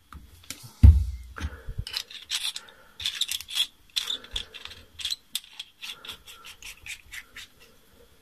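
Metal clicks and scraping threads as a Wismec Reux RTA tank's stainless steel top cap and parts are screwed together by hand, with a dull thump about a second in.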